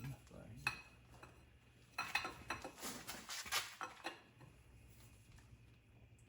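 Scattered metal clinks and clanks as a truck transmission and transfer case are eased down out of the vehicle, most of them bunched together in the middle, over a faint low hum.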